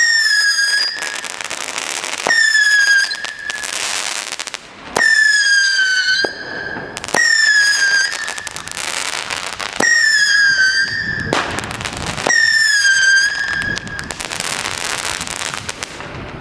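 Rubro 'Lost Soul' whistling cake firing its shots one after another: each opens with a sharp pop and a shrill whistle of about a second that slides slightly down in pitch. Five new whistles start in turn, about every two to three seconds, with rushes of hissing between them.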